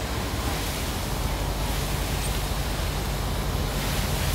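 Fire hose spraying water onto a burning van, a steady rushing hiss over a low steady hum.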